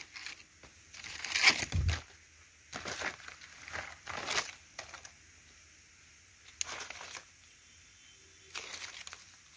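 Leaves and vine stems rustling as they are handled, in several short bursts with quiet between.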